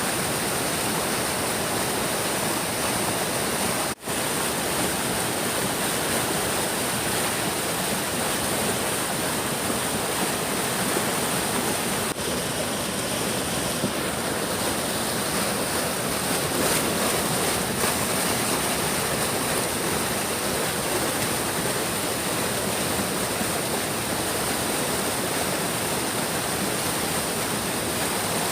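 A big stream flowing, its water making a steady, even rush with a momentary gap about four seconds in.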